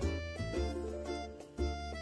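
Background music: a bouncy, playful tune with a bass note on each beat, about two beats a second.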